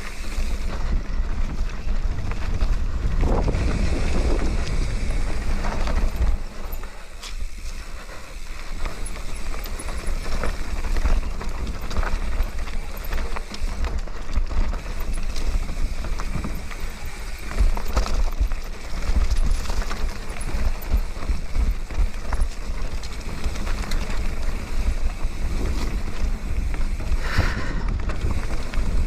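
Marin San Quentin 3 hardtail mountain bike ridden down a dirt singletrack, heard from an onboard action camera: wind rumbling on the microphone, with tyre noise and scattered knocks and rattles from the bike over bumps.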